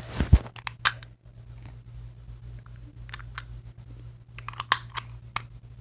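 Small plastic toy accessory being worked and pulled free of its holder by hand: irregular plastic clicks and taps, with two louder knocks in the first second and a flurry of clicks near the end.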